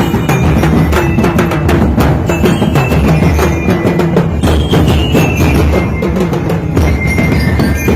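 Ati-atihan festival drum band playing: snare and bass drums beating a busy, steady rhythm, with a few faint ringing metallic tones over it.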